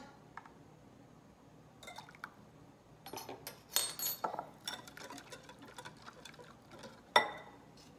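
Stirring a thick peanut dressing in a glass bowl: a run of quick clinks and wet scraping against the glass, with a sharp clink about seven seconds in. A few small clicks come about two seconds in.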